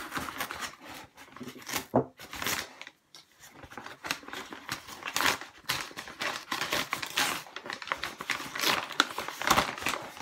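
A paper mailing envelope being torn open by hand: irregular rips and crinkles of paper, with a short pause about three seconds in.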